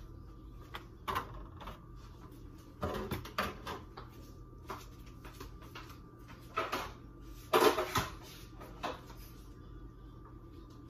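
Kitchen clatter: things being moved about and set down on a counter, a handful of separate knocks and clunks with the loudest about seven and a half seconds in, over a faint steady hum.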